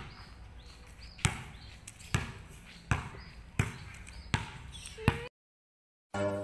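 Basketball dribbled on a hard outdoor court: six bounces in a steady rhythm, a little under a second apart, then it stops.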